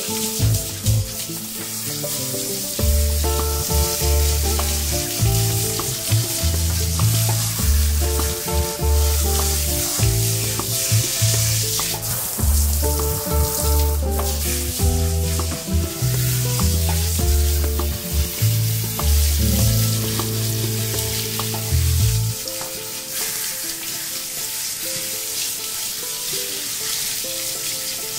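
Water spraying from a handheld shower head as it rinses a dog's thick, wet coat, a steady hiss, over background music. The music's deep bass notes drop out about three quarters of the way through.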